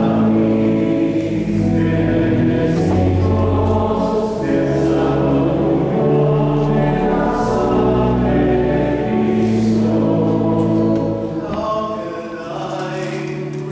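Church choir singing sacred music with a low sustained accompaniment in long held chords. About eleven seconds in the low part drops away and the music grows quieter.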